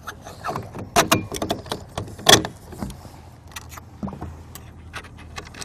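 Leeboard bolt, washer and wing nut being fitted to an aluminium leeboard bracket by hand: scattered small metallic clicks and clinks, with two sharper knocks about one and two and a half seconds in.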